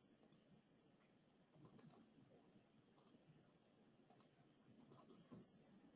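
Faint computer mouse clicks over near silence, a scattering of single clicks and quick pairs as the pointer works through a menu.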